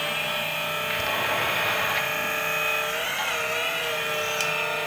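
Twin hydraulic pumps of a 1/12 scale metal RC excavator running with a steady whine. The pitch wavers about three seconds in as the boom, arm and bucket are worked.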